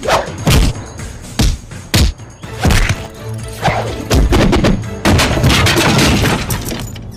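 Film fight sound effects: a string of sharp punch and kick impacts, about one every half second, thickening into a rapid run of blows near the end, over a background score.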